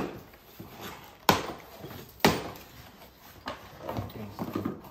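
Cardboard boxes being torn open and handled by hand: two sharp cardboard knocks about a second apart, then quieter rustling of flaps.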